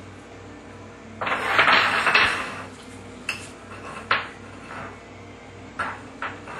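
A rough clatter on a tile floor lasting about a second and a half, then a handful of separate sharp knocks, the loudest about four seconds in, as a puppy noses a small training dumbbell about on the tiles.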